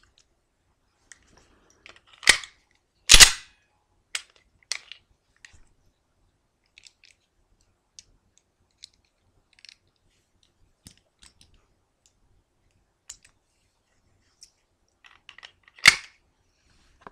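Sharp metallic clicks from a Walther PPS 9mm pistol and its magazine being handled during a magazine swap. Two loud clicks come about two and three seconds in, scattered faint ticks follow, and another loud click comes near the end.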